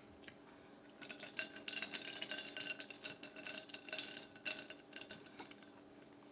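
Ice clinking and rattling in a glass of mixed drink as it is held and sipped: a run of small, irregular clinks with a faint glassy ring, starting about a second in and stopping about a second before the end.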